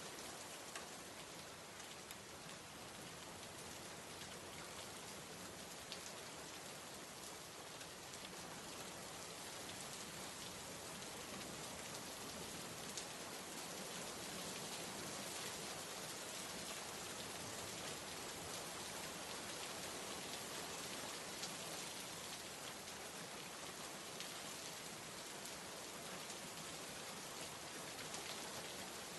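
Steady rain falling: an even hiss with scattered drop ticks, a little heavier in the second half.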